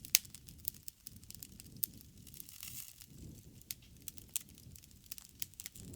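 Dry leaves burning with irregular sharp crackles and snaps over a low rumble.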